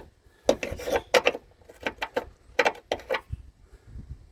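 Sharp clicks and scrapes of hard metal parts being handled and knocked together, in two quick clusters, during brake hose fitting work.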